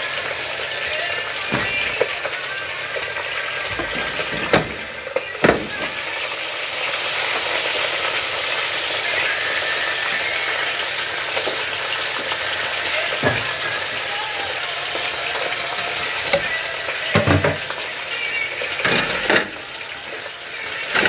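Food sizzling as it fries in a pan, a steady hiss with a few sharp knocks and clinks of utensils scattered through it.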